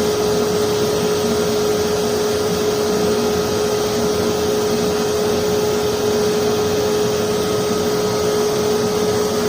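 Blower motor of a forced-air propane forge burner running steadily, a constant whine over the even rush of air and propane flame through the forge. The burner is set for a slightly reducing flame, with a little dragon's breath at the forge mouth.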